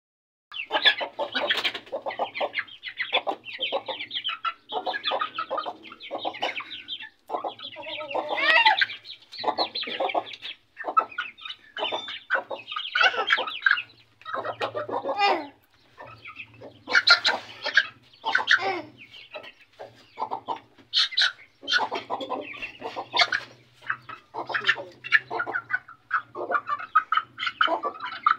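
Aseel chicken clucking and squawking over and over in short, rapid calls, as a bird held in someone's arms does.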